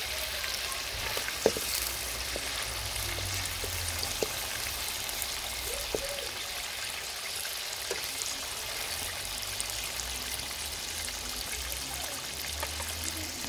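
Fish pieces deep-frying in hot oil in a wok, a steady sizzle and bubbling with fine crackles. A few light knocks come from a wooden spatula against the pan.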